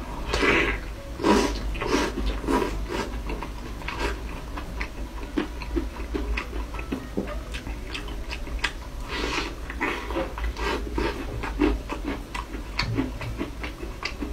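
Close-miked eating: biting and chewing sauce-covered fried meat, a quick irregular run of wet mouth smacks and clicks.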